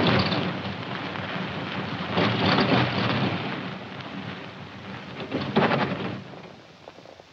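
A 1940s car's engine sputtering and coughing in three heavy surges about two and a half seconds apart, then dying away near the end as the car stalls.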